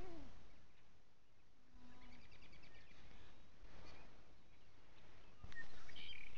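Outdoor ambience with small birds chirping, including a quick trill about two seconds in and a brief low steady call at the same moment. A sharp tap comes near the end, followed by a few louder chirps.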